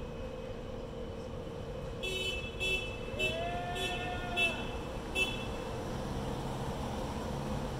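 Car horns honking in support of a protest sign: a string of about six short, high toots, with a longer, lower honk held for about a second in the middle, over steady traffic noise.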